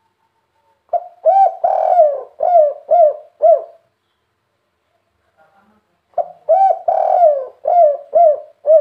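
Spotted dove (tekukur) cooing in its three-'kuk' song: two phrases a couple of seconds apart. Each phrase is two short notes and one longer drawn-out coo, ending in three short clipped 'kuk' notes.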